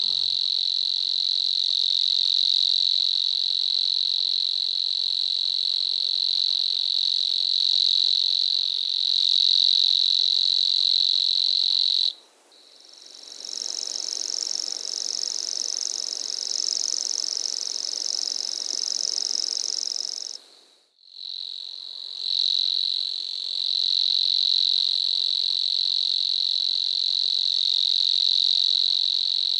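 Steady night chorus of calling animals, a continuous shrill trill. About twelve seconds in it cuts abruptly to a higher-pitched chorus, and shortly after twenty seconds back to the first.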